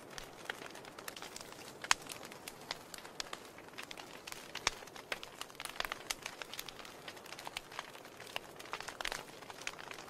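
Wood fire crackling in an open fireplace: irregular sharp pops and snaps over a soft hiss, the loudest pops about two seconds in and just before the halfway mark.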